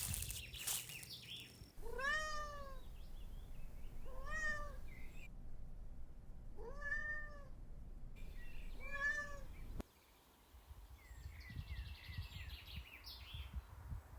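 A domestic cat meowing four times, each meow a short call that rises and falls in pitch, spaced about two to two and a half seconds apart.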